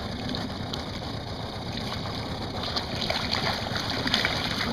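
Steady running of a small boat's outboard motor at trolling speed, with water and wind noise. About three seconds in, a hooked fish thrashes and splashes at the surface beside the boat.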